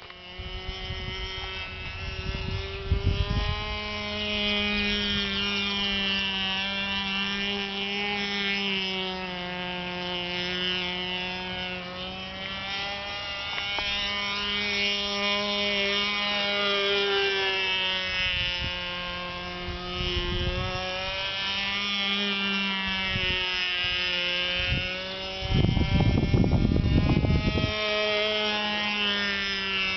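Nitro glow engine of a radio-controlled model airplane running in flight, its buzzing pitch rising and falling repeatedly through the manoeuvres. Several bursts of low rumble cut in, the loudest near the end.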